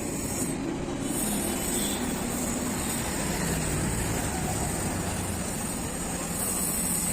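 Welding on a child's bicycle frame: a steady, crackling hiss.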